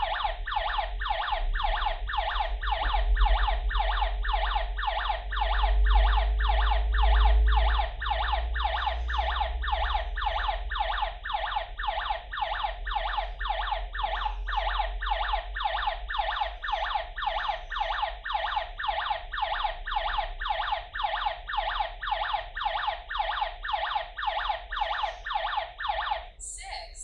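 Built-in electronic siren of a KERUI KR-W181 alarm host sounding in alarm, a rapidly pulsing wail at about three or four pulses a second, over a low rumble. It stops near the end.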